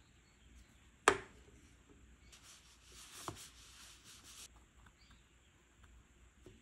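Water from a plastic dropper bottle falling onto pressed eyeshadow powder: one sharp plop about a second in, then a soft crackling hiss with a lighter tap in the middle. Faint ticks from metal tweezers near the end.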